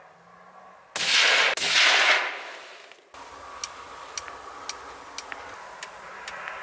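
A shot from a suppressed hunting rifle about a second in, dying away over the next two seconds, fired while zeroing the newly threaded rifle. It is followed by faint, evenly spaced ticks about twice a second.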